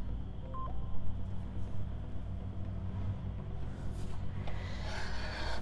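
Steady low mechanical hum, with light metal clicking and rubbing as a PortaTool counterbore cutting tool on an engine block is handled and reset for the next cut, growing rougher near the end; a short high beep about half a second in.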